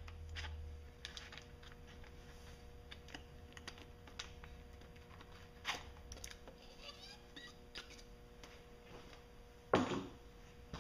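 Light clicks and knocks of parts being handled as the plastic water pump housing of a Honda 90 hp outboard's lower unit is worked up and off the driveshaft, with a louder knock near the end.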